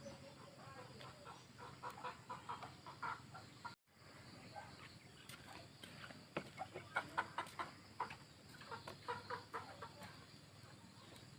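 Chickens clucking in short, repeated runs of calls. The sound drops out completely for a moment about four seconds in.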